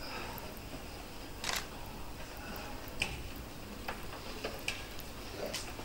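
Quiet room noise broken by about five faint, short clicks and rustles, spaced irregularly; the longest is a brief rustle about one and a half seconds in.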